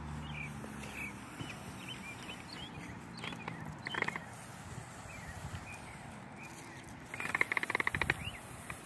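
Birds chirping outdoors, short high calls scattered throughout. Near the end comes a louder, rapid run of ticks lasting about a second.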